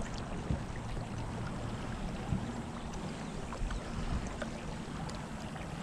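Pedal-driven fishing kayak under way: water moving along the hull, over a steady low rumble, with a few light knocks.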